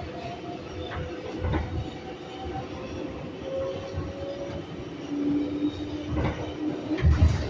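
An R142A New York City subway train running along the track: a steady rumble with held whining tones that shift in pitch, and thumps of the wheels over the rail joints, the loudest just before the end.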